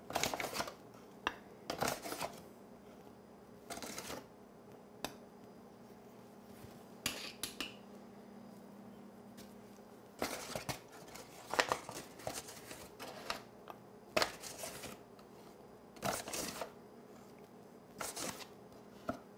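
Spoon scooping flour into a metal measuring cup, with irregular soft scrapes and light taps separated by quiet gaps as each cup is filled, leveled off and tipped into the mixing bowl.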